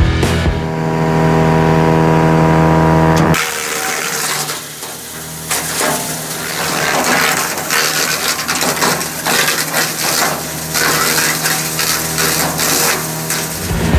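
Tractor engine running steadily, driving a Ceccato Tritone PTO garden shredder. About three seconds in, the sound turns to dense crackling and rattling as the shredder's rotor chops branches and green material.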